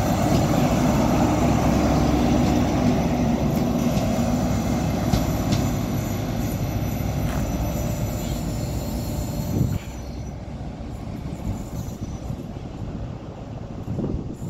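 Diesel engine of a GWR Class 43 HST power car running as the train moves along the track close by, with rail and wheel noise. The level drops suddenly about ten seconds in, and the train is fainter after that.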